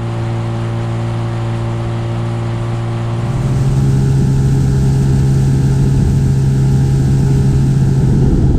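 Inflatable boat's outboard motor running steadily, then opened up about three seconds in: the engine note rises a little in pitch and gets louder, then holds.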